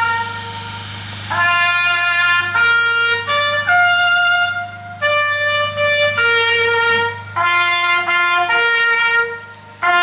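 Solo trumpet playing a slow melody of long held notes, with short breaks between phrases: the call that accompanies a minute's silence at a memorial ceremony.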